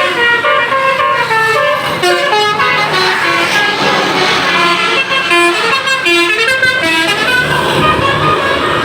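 Basuri telolet multi-tone air horn fitted to a car, playing a fast melody of short horn notes that step up and down in pitch several times a second. Near the end the melody thins out and a low rumble is left.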